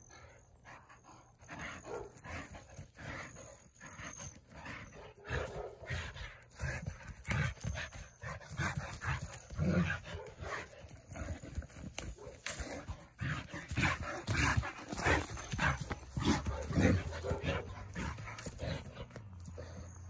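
Irish wolfhound digging in dry dirt with its front paws and its nose down in the hole: irregular scraping and sniffing, mixed with low dog vocal sounds.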